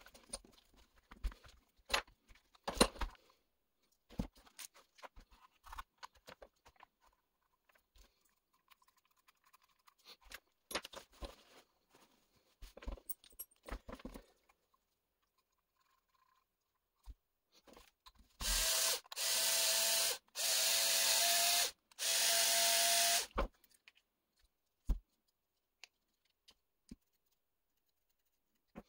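Small clicks and knocks of plastic parts and hand tools being handled. Then, about two-thirds of the way in, a cordless drill with a hex driver bit runs in four short bursts of about a second each, with a steady whine, backing out the RC car's gearbox screws.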